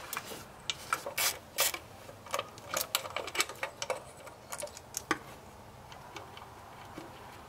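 Hand socket ratchet on a wobble extension clicking in short irregular runs as it loosens the low, hard-to-reach thermostat housing bolt, with an odd knock of the tool on metal; the clicks thin out about five seconds in.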